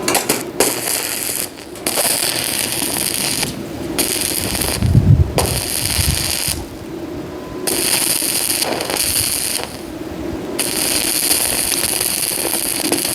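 Arc welding on a steel roof frame: about six crackling, sizzling bursts of one to two seconds each, with short pauses between welds. A low thump comes about five seconds in.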